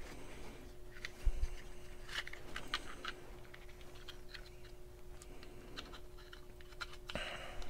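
Small, irregular plastic clicks and scratches as a thumb ring is pressed and worked onto the plastic body of a Mean Arms MA Loader magazine loader, trying to seat it in its grooves.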